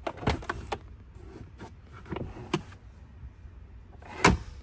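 Plastic clicks and knocks of a pickup's glove box latch and lid being handled, then one louder thump near the end.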